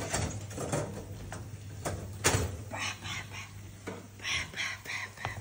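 A metal baking tray with a wire rack being slid out of an oven and lifted, with scrapes and knocks of metal on metal; the loudest knock comes a little past two seconds in.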